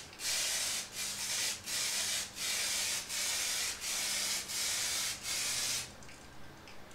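Aerosol spray can of Soft99 lacquer paint hissing in a run of about eight short bursts, one per sweep across the part, while a colour coat goes on. It stops about six seconds in.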